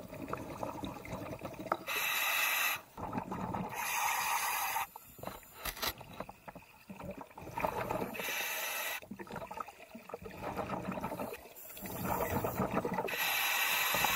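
Scuba diver breathing through a regulator underwater: hissing inhales through the demand valve alternate with bubbling, gurgling exhales, over several breaths.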